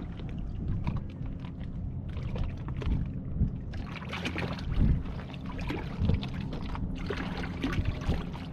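Sailboat under way: a steady low hum with irregular splashing and wind noise crackling over it.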